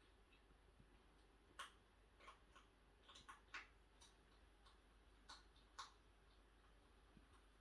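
Faint, irregular clicks and crunches of a hedgehog eating cat food from a bowl, under a low steady room hum.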